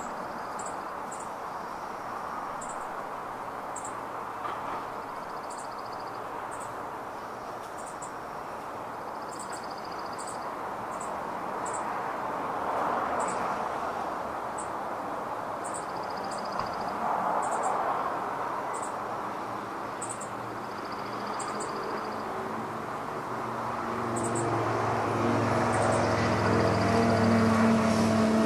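Steady hum of road traffic from a nearby avenue, with small birds giving short high chirps every second or so and a few brief trills. Near the end a vehicle engine grows louder, a low hum rising over the traffic.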